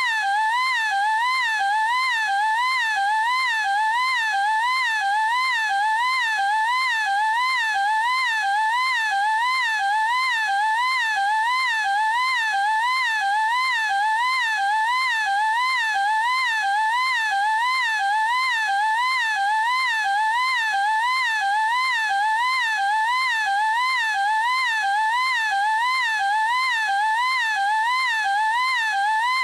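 An anime girl's high-pitched "eeeeek" scream, drawn out without a break, its pitch wavering evenly up and down about one and a half times a second.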